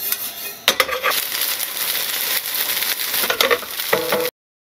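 Gnocchi frying in a pan over a gas burner: steady sizzling with scattered clicks and knocks as the pan is shaken, cutting off suddenly near the end.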